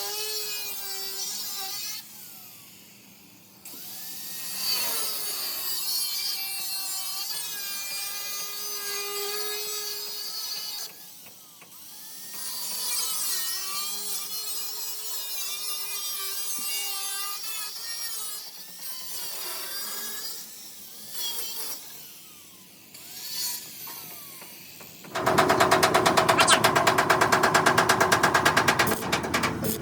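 Power tools working metal: a whining tool whose pitch shifts and glides, stopping and starting several times. Near the end a much louder, fast, rapid-fire rattle takes over.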